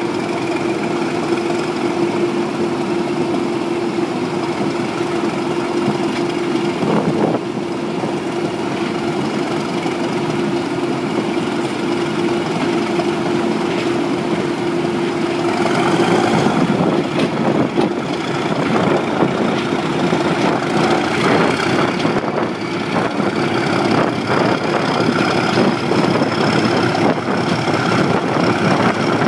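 English Electric V12 diesel engine of a Class 37 locomotive working under power, heard from the cab side window as the train moves. About halfway through the engine grows louder and busier, with a high whine climbing after it.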